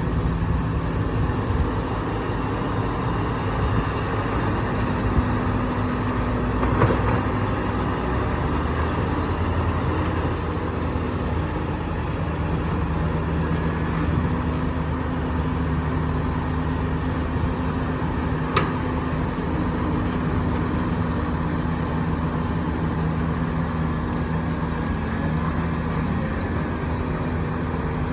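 Heavy diesel earthmoving machinery (dump truck and bulldozer) running steadily with a low rumble, with two sharp knocks partway through.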